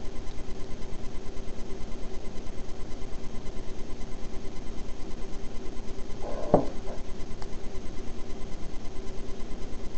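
Steady electrical hum with a fast, even pulsing, and one short knock about six and a half seconds in.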